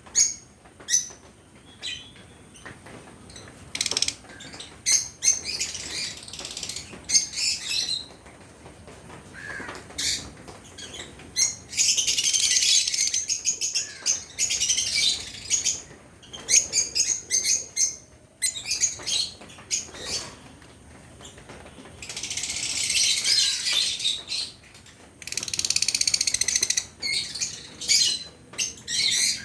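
Fischer's lovebirds chattering with rapid, shrill chirps in bursts, with two long stretches of dense high chattering, about twelve seconds in and again from about twenty-two seconds in.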